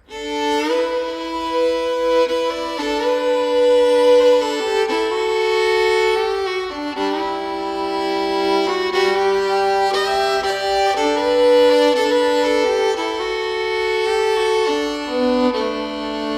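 Fiddle music: a slow melody of held notes, often two sounding at once.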